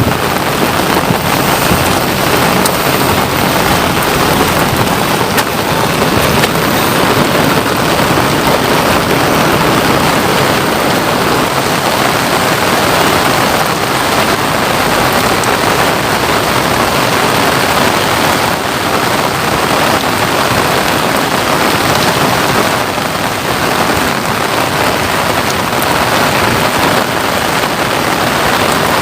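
Steady rain falling, a dense even hiss of many small drop hits without let-up.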